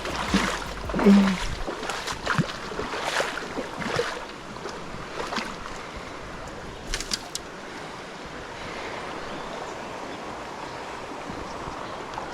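River running high after heavy rain: a steady rush of current. A handful of short clicks and knocks sound over it in the first few seconds, and twice more about seven seconds in.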